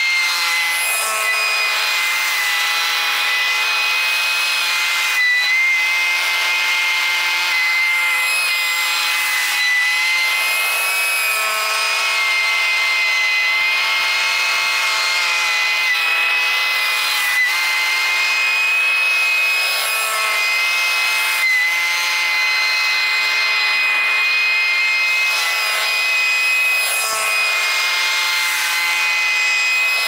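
Stand-on commercial leaf blower running at full throttle: a loud, steady high-pitched fan whine made of several held tones, wavering only slightly in pitch.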